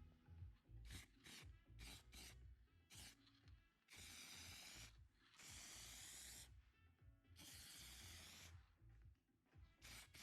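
Faint rasping or rubbing strokes: several short strokes, then three longer ones of about a second each, then short strokes again.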